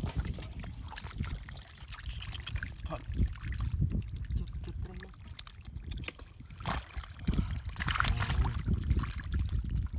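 Hands digging and grabbing in wet mud and shallow muddy water, with squelches and splashes. The loudest splashing comes about eight seconds in.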